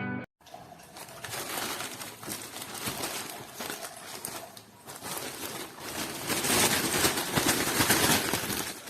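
Plastic crinkling and rustling with dense fine crackles, growing louder in the second half, as from a plastic drain hose or its packaging being handled.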